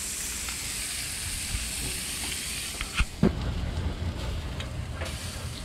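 A pan of food cooking, with a steady steaming, sizzling hiss. About three seconds in there is a sharp knock, after which the hiss fades and a lower rumble carries on.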